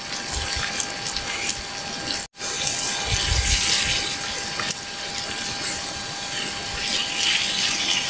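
Chicken curry sizzling in a cast-iron skillet over a campfire, a steady frying hiss, with a wooden spatula stirring and scraping through it and a few sharp clicks. The sound cuts out for a moment about two seconds in.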